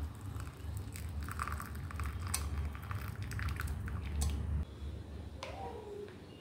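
Hot milk tea poured from a pan through a metal mesh tea strainer into a mug: liquid splashing and trickling with small clicks, over a low rumble that stops about four and a half seconds in. A short falling tone follows near the end.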